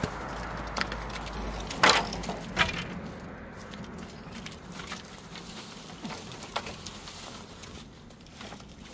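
Bamboo poles knocking against each other as they are handled and dropped on the pile, with a sharp knock about two seconds in and fainter clatter after.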